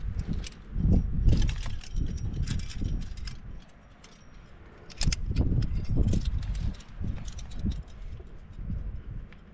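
Metal climbing hardware on a harness, carabiners and gear, clinking and jangling in irregular clusters as the climber moves. Low rumbling noise on the microphone comes and goes underneath, with a quieter lull about halfway through.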